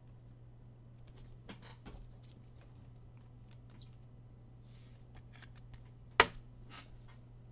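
Soft, scattered rustles and clicks of trading-card packs and cards being handled, with one sharp tap a little past six seconds in, the loudest sound. A low steady hum runs underneath.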